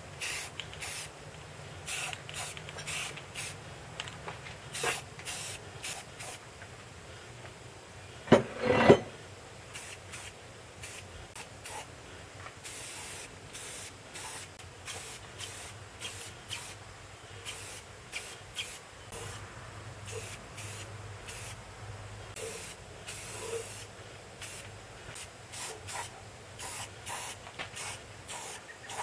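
Aerosol spray paint can hissing in many short bursts. About eight seconds in, two short, much louder sounds stand out.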